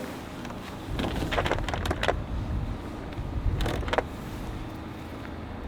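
Hand-tool work on a car's interior door panel as its screws are taken out: a low rumble of handling with a string of sharp clicks and knocks between about one and four seconds in.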